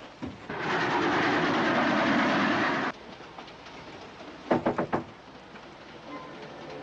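Train running at speed: a loud rushing, rattling noise for about two seconds that cuts off suddenly, followed by a few sharp knocks.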